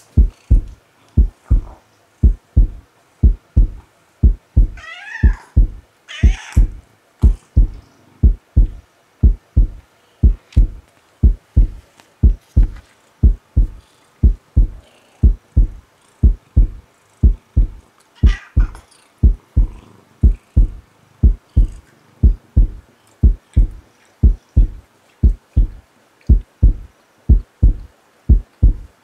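Heartbeat sound effect: steady paired lub-dub thumps, with a cat meowing over it, twice about five to six seconds in and once more at about eighteen seconds.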